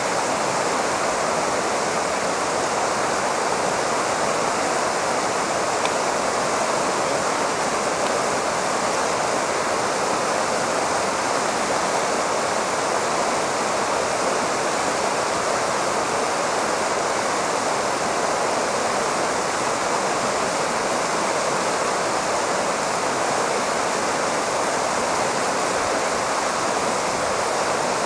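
Shallow stream running steadily over rocks, with water spilling through a small riffle.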